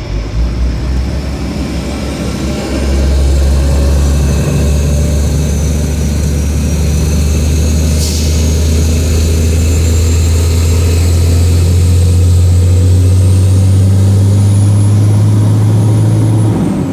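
Heavy truck's diesel engine heard from inside the cab, running under steady load as the truck rolls with traffic. It gets louder about two and a half seconds in. A faint high whine rises slowly through most of the stretch, and there is a single brief click about eight seconds in.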